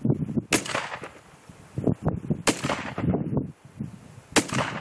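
Shotgun fired three times, roughly two seconds apart, each shot a sharp crack with a short tail after it.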